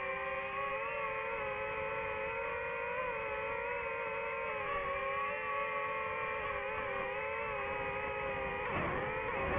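Quadcopter drone propellers humming steadily, several close tones wavering slightly together. Near the end the pitch dips sharply and swoops back up.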